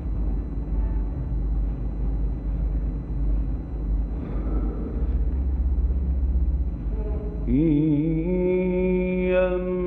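Steady low hum and hiss of an old recording through a pause in the recitation. About three-quarters of the way through, a man's voice begins Quranic recitation, rising into long held melodic notes.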